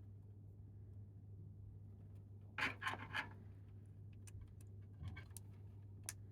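Power supply cables and their plastic connectors being handled: a short cluster of rustles and clicks about two and a half seconds in, then a few scattered sharp clicks, over a steady low hum.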